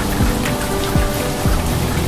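Steady rain falling on palm trees, with soft background music playing over it and a few low thuds.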